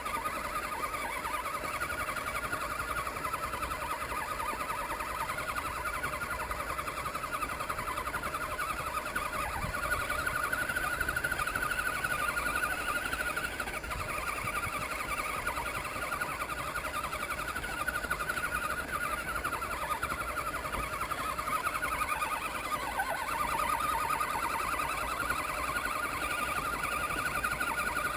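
Electric motor and gear drivetrain of an Axial SCX10 1/10 scale RC crawler whining steadily as it crawls over gravel, the pitch wavering up and down. Heard close up from a camera mounted on the truck.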